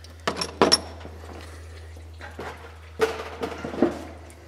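Metal tools and parts clinking and knocking during work in an engine bay, over a steady low hum. A few sharp clinks come in the first second, two of them with a short metallic ring. A cluster of clattering and rustling follows about three to four seconds in.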